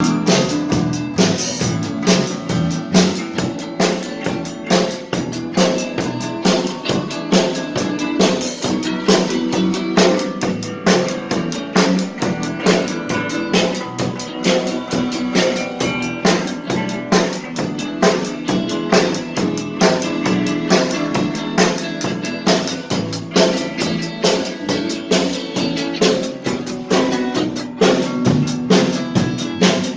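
A drum kit played in a band with other pitched instruments, keeping a steady beat.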